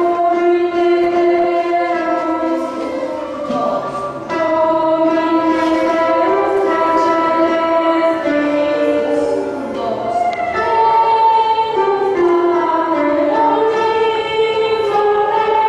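Choir singing with a string orchestra in long held notes of Bolivian mission music.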